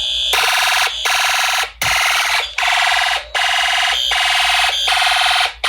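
Fire alarm horn sounding loudly in a pulsing pattern: harsh buzzing blasts, each roughly half a second to a second long, separated by brief gaps. A high steady beep shows through at the start.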